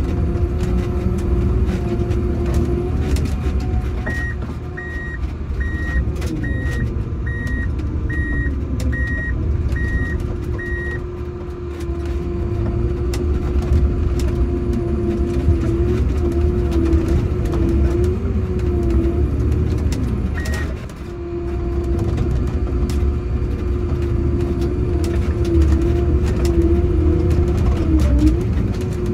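Prinoth Bison snowcat running under load while its front blade pushes snow, heard from inside the cab: a low rumble with a steady whine that wavers in pitch. An electronic warning beeper sounds about a dozen times, at a steady pace of roughly one and a half beeps a second, then once more later.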